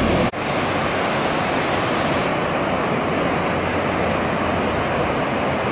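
Whitewater rapids of the Niagara River rushing steadily, a dense even hiss of fast-moving water.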